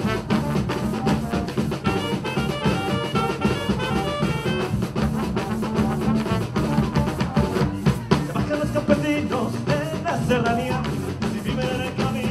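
Live Colombian Caribbean fandango music: a band playing a brisk, steady drum beat under melodic horn-like lines.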